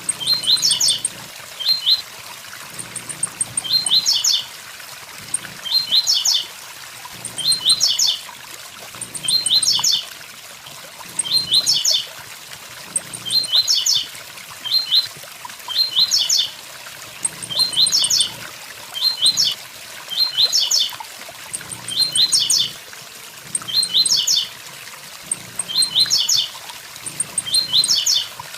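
Blue-black grassquit (tiziu) singing its short 'tui tui zel zel' phrase of quick, high, down-sweeping notes, repeated at an even pace about every two seconds. A waterfall rushes steadily underneath.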